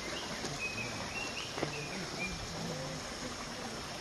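Steady rush of a small stream running over rocks in wet forest, with a few short high bird chirps during the first two seconds.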